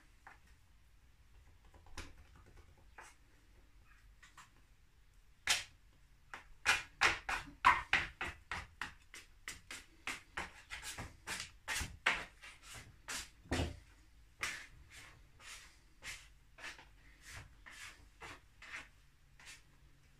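Plastic dough scraper scraping against a wooden worktop as it is pushed under the edge of a round of sourdough to shape it: a few isolated scrapes, then from about five seconds in a long run of short, quick strokes, about two a second, that die away near the end.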